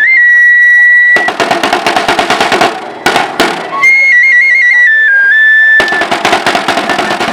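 A high flute holds a long note, then plays a short trilled phrase, alternating with fast snare drum rolls that come in about a second in and again near the end.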